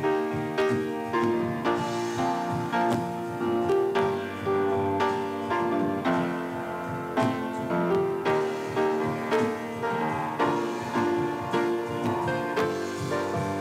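Instrumental piano music with no singing: a flowing run of notes and chords, each note starting sharply and fading.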